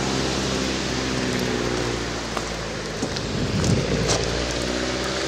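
A car driving past on a wet, slushy road: a steady engine hum over the hiss of tyres through slush, a little louder just past the middle as it goes by.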